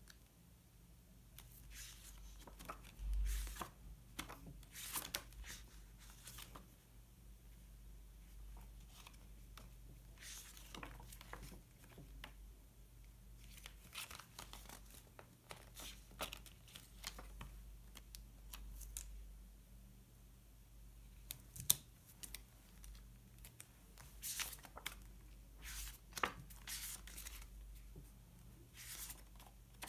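Paper stickers being peeled from their backing sheets and paper handled: irregular short scratchy tearing and crinkling strokes, with one sharp tap a little over two-thirds of the way through.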